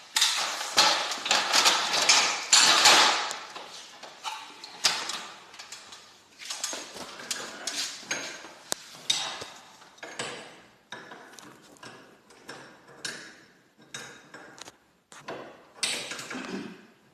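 Metal clanking and tapping from hand tools and garage door hardware: a dense clatter over the first three seconds, then scattered clicks and knocks.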